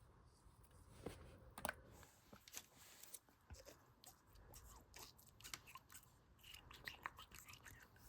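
Slime with beads mixed into it being squished, giving quiet, irregular crunchy clicks and crackles that start about a second in.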